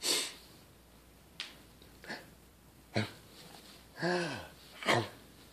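Short breathy voice sounds: a breathy exhale at the start, then a few brief grunt-like vocal sounds, the longest about four seconds in with a falling pitch.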